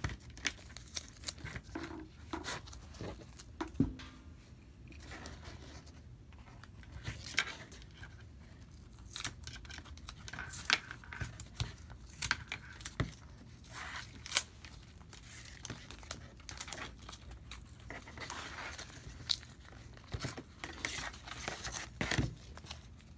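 Handling noise from a foam-clay half mask and its straps being turned over and shifted on a cutting mat: scattered, irregular taps, clicks and rustles.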